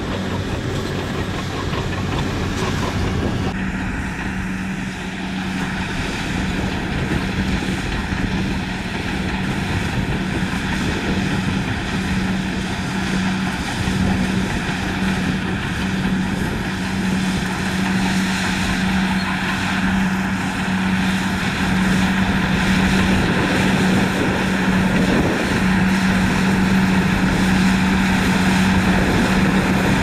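For about the first three seconds a Shacman dump truck's diesel engine runs as it drives across the sand. Then an HBXG crawler bulldozer's diesel engine runs steadily with a constant low drone under the load of pushing a pile of dirt, growing slightly louder toward the end.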